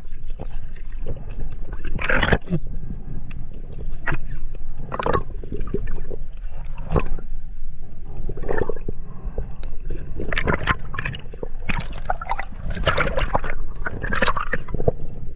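Underwater sound heard from a submerged camera: a steady low water rumble broken by irregular gurgling rushes every second or two.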